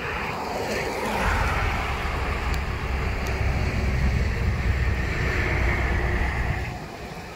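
Thunderstorm noise: a deep rumble with a hiss above it builds about a second in, holds for several seconds and drops off near the end.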